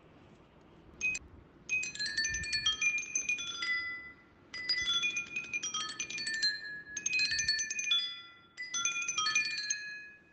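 Tinkling chime music: a single bell-like note, then four runs of quick, high, ringing notes with short pauses between them, over a faint low hum.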